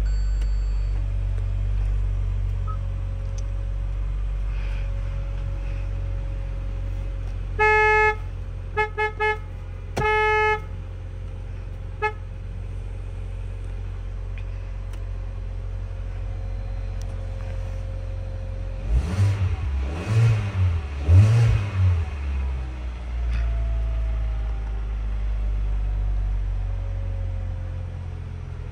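2019 Hyundai Veloster's horn honked in a short series, one honk, three quick toots, another honk and a brief tap, about eight to twelve seconds in, over the steady low hum of the engine idling. Later, a few seconds of louder, uneven low rumbling pulses.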